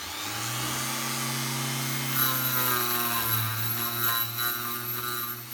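Parkside PGS 500 A1 500 W die grinder running at high speed with a twisted-knot wire brush, its whine rising as it comes up to speed at the start, then held steady. The spinning wire brush scrubs against a welded steel tube, adding a rough scratchy hiss that grows about two seconds in.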